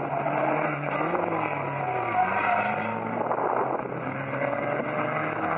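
Engines of 2-litre banger racing cars running and revving as they drive around the track, the pitch rising and falling.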